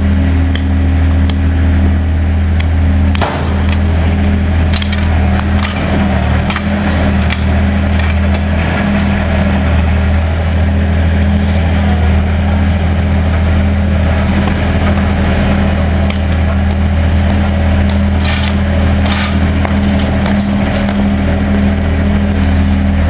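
A motor vehicle's engine running with a steady low hum, with scattered clicks and knocks over it.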